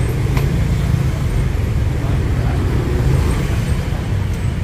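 Steady rumble of road traffic on a busy city street, with a faint click about half a second in.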